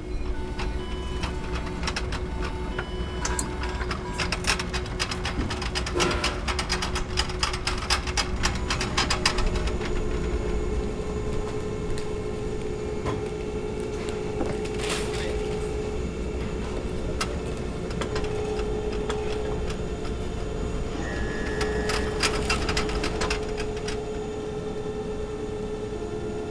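Hospital machine ambience: a steady electrical hum under short electronic beeps in the first couple of seconds. Fast mechanical clicking and rattling comes in bursts, densest between about 3 and 9 seconds in, with shorter bursts later. The hum steps up in pitch about 10 seconds in.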